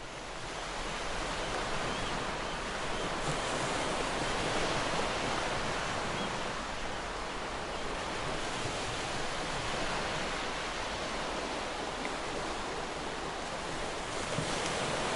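Small waves washing onto a sandy beach: a steady, even rush of surf that fades in over the first second or two.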